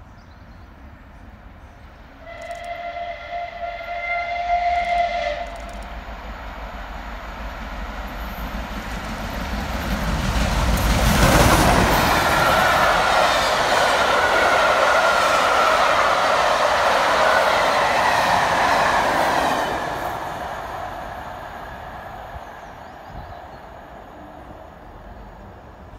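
Steam locomotive 35028 "Clan Line", a Bulleid Merchant Navy class Pacific, sounds its whistle for about three seconds. It then passes at speed with a rush of steam and the clatter of its Pullman coaches' wheels, which builds to a peak, holds for several seconds and fades away.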